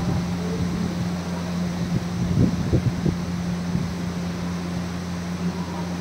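Steady low hum of room ventilation running, with a few brief soft clicks a little before halfway.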